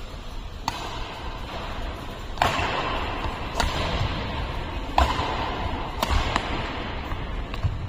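Badminton rally: rackets striking the shuttlecock roughly once a second, each hit a sharp smack that rings on in a large echoing hall.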